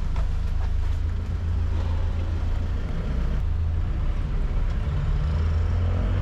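The engine of a red songthaew pickup taxi rumbling low and steady, heard from its open-sided rear cab with road and traffic noise coming in. A few knocks in the first second as passengers climb aboard.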